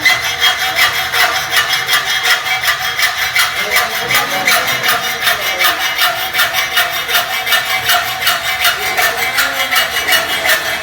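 Fast, even scraping or rasping, about five or six strokes a second, running steadily.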